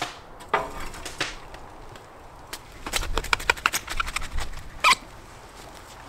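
A metal poker knocks and scrapes in the firebox of a wood-burning stove, then a paper packet crinkles and crackles in the hands for about two seconds, ending in one sharp crinkle.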